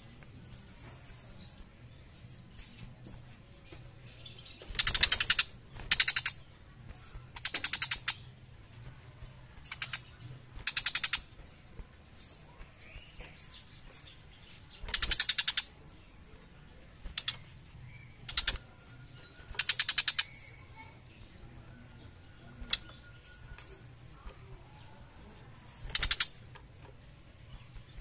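Young tiger shrike giving short rattling chatter calls, each a burst of rapid clicks lasting under a second, repeated irregularly about a dozen times.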